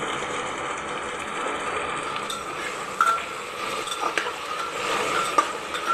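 Several short, sharp metallic clinks in the second half, each ringing briefly at one pitch, over a steady background hiss.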